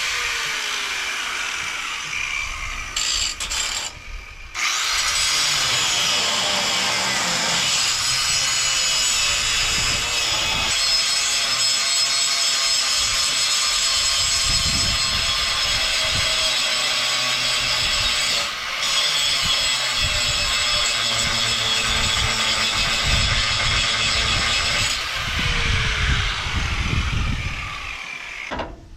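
Angle grinder with a cutoff wheel cutting through steel, a steady high-pitched whine that dips about four seconds in and stops abruptly near the end.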